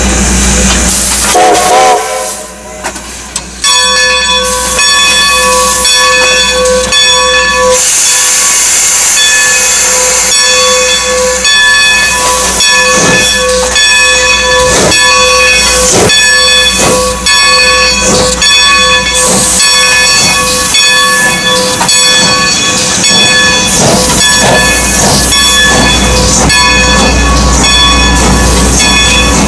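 Strasburg Rail Road No. 90, a 2-10-0 steam locomotive, working its train away: steam hissing and exhaust strokes at a slow, regular beat. A steady chord of several high tones is held from about four seconds in.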